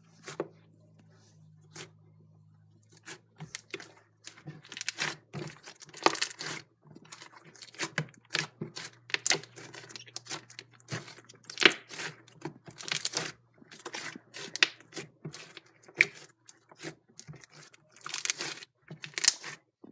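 Slime being kneaded and stretched by hand with soft clay worked in to make butter slime, giving dense, irregular sticky crackles and snaps that start about three seconds in.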